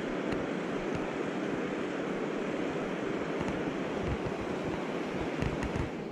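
Mountain stream water rushing steadily over rocks, with low rumbles of wind on the microphone and a few faint clicks near the end.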